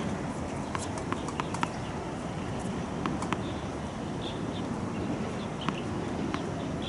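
Sharp knocks of tennis balls bouncing on a hard court: a quick run of bounces coming closer together about a second in, then a few scattered single knocks, over steady background noise.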